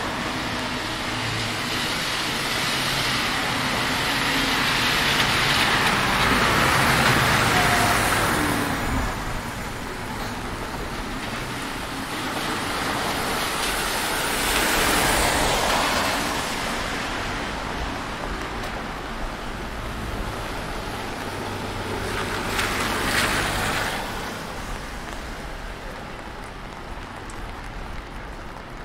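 Road traffic on a rain-wet street: three vehicles swell up and fade in turn, tyre hiss over low engine hum.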